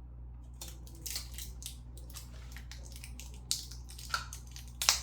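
Crinkling and crackling of plastic and paper packaging being handled, in a run of irregular rustles with a few sharper crackles near the end, over a steady low hum.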